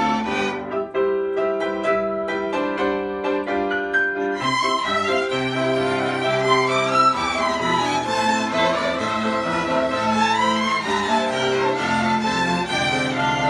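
Children's string ensemble of violins and a cello playing together. For the first few seconds the notes are short and detached, then a fuller bowed melody follows with sliding notes.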